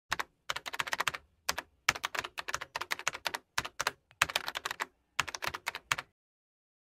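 Computer keyboard typing: quick runs of key clicks broken by short pauses, stopping about six seconds in.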